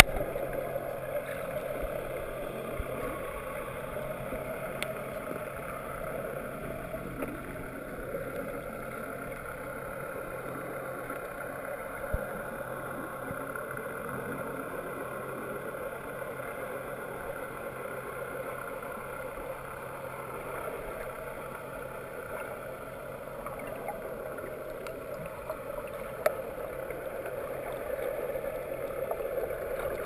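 Muffled underwater ambience heard through a GoPro's waterproof housing: a steady, even rush of water noise, with a couple of sharp clicks.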